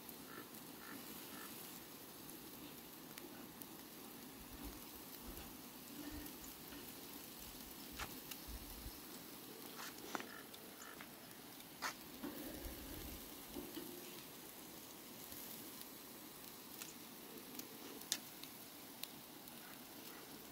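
Steaks sizzling faintly on the grate of a charcoal grill, with scattered crackles and pops.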